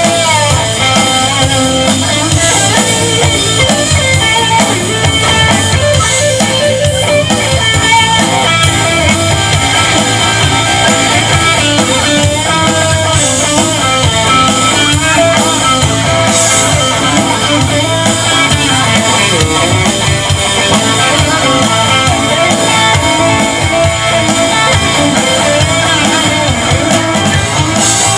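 Live classic rock band playing an instrumental passage with no singing: electric guitars over a drum kit, loud and steady.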